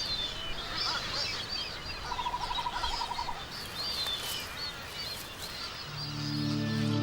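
Birds calling at an albatross colony: short high chirps throughout, and a rapid trilled call of about ten pulses a second around two seconds in. Soft music fades in near the end.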